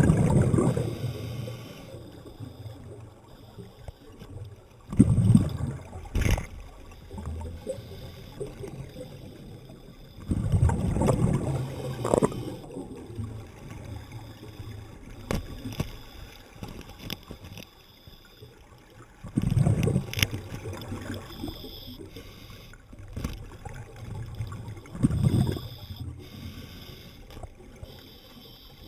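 Underwater, a scuba diver's exhaled air bubbling out of the regulator in gurgling bursts about every five seconds, with a quieter water hiss between breaths.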